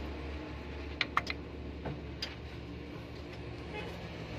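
A few sharp, light metal clicks and taps, close together, as the camshaft timing gear and the parts around it are handled and turned by hand during cylinder-head reassembly. A steady low hum runs underneath.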